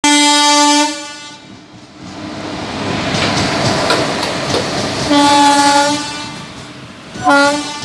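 WAP-1 electric locomotive's horn sounding three times on one steady note: a one-second blast at the start, another about five seconds in, and a short toot near the end. Between the blasts come the rumble and wheel clatter of the locomotive and coaches running past.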